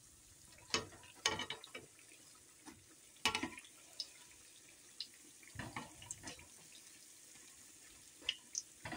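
Bean and gram-flour fritters deep-frying in a pan of oil, a steady faint sizzle, with several sharp clinks and short clatters from a metal mesh skimmer against the pan, the loudest about three seconds in.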